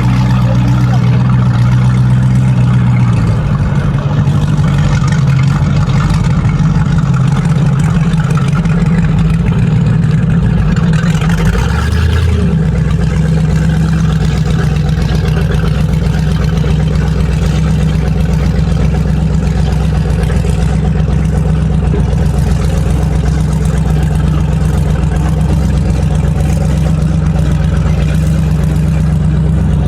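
Motorboat engine running steadily, its pitch stepping down about three seconds in and shifting again about twelve seconds in.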